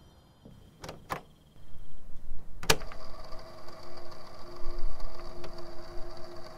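Cassette player sound effect: two light button clicks about a second in, a sharper clunk shortly after, then the tape mechanism running with a steady whirring hum.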